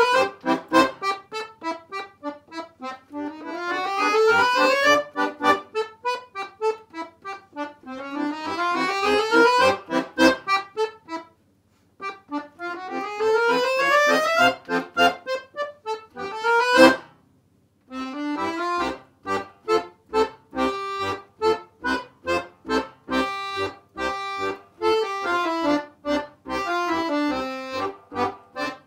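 Solo chromatic button accordion playing fast rising runs that repeat every few seconds, ending on a sharp accented chord about 17 seconds in. After a short pause a new piece starts, in short detached chords at a steady, even rhythm.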